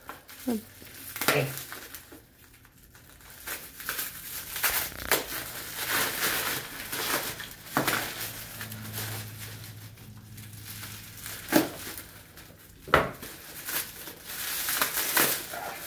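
Plastic bubble wrap crinkling and rustling in irregular bursts as it is handled and pulled off a wrapped lightsaber hilt, with two sharp clicks near the end.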